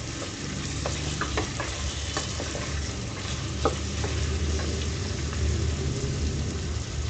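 Eggplant pieces sizzling steadily as they fry in oil in a pressure cooker, with a few sharp clicks of a spoon stirring against the pot.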